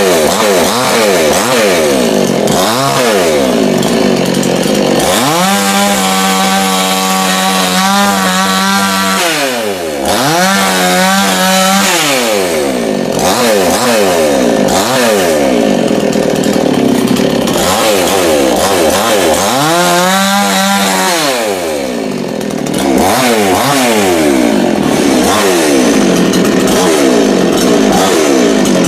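Chainsaw engine revved up and down over and over, held at a steady high pitch for a few seconds twice.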